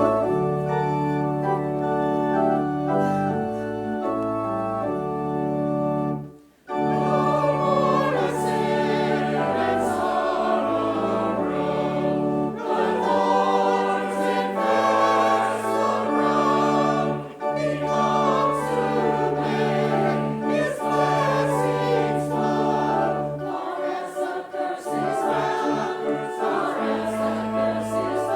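Church organ playing held chords, breaking off briefly about six seconds in, then voices singing a hymn with the organ accompanying.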